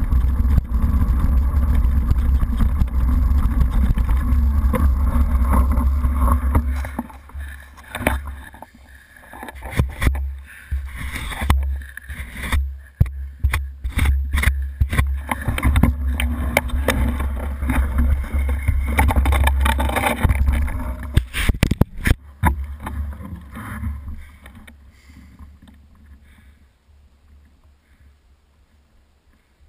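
Low rumble of wind buffeting and tyre noise picked up by a bike-mounted GoPro in its sealed housing while riding a rough, wet trail. The rumble drops off after about seven seconds into a run of knocks and rattles, and comes back for a few seconds in the middle. It grows much quieter near the end.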